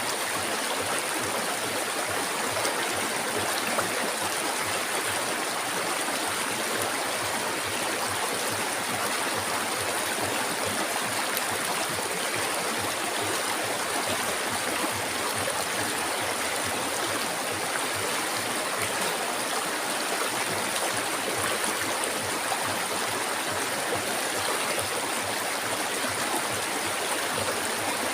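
River water flowing in a steady, even rush that does not change or break.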